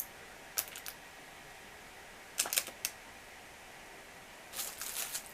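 Small clicks and taps of watch repair tools and their case being handled: a few single clicks, a quick cluster about halfway, and a longer rattling run near the end.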